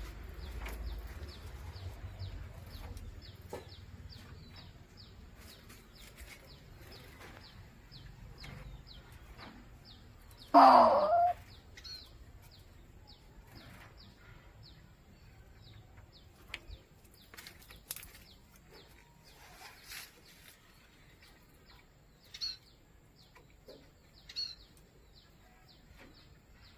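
A bird gives one loud, harsh squawk about ten seconds in, with a few fainter calls later. Under it runs a faint, even series of high ticks, about three a second.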